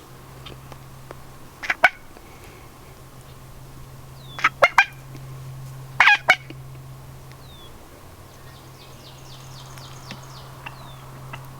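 Wild turkey gobbling three times, each gobble a short loud rattling burst, the three coming within about five seconds.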